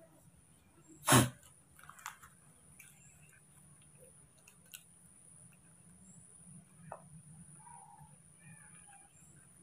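A baby monkey handling a small foil sachet: one loud sharp crackle or knock about a second in, then scattered faint crinkles and clicks, over a faint steady hum.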